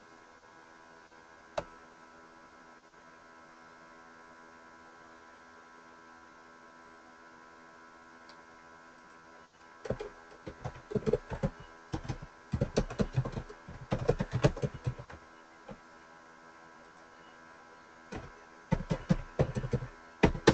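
Computer keyboard typing in quick bursts of clicks, starting about halfway in, over a steady electrical hum; a single sharp click about a second and a half in.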